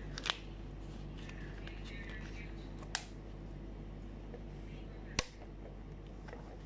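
Handling noise: a plastic water bottle being handled gives a sharp click just after the start, followed by two more single sharp clicks about three and five seconds in, over a steady low hum.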